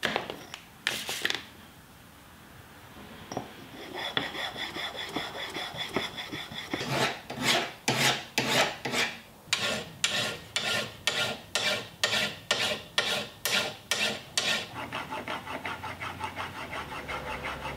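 A steel plane blade being filed by hand, with regular back-and-forth scraping strokes about two a second, after a couple of knocks at the start. Near the end the strokes turn quicker and fainter as the blade is rubbed on a flat sharpening surface.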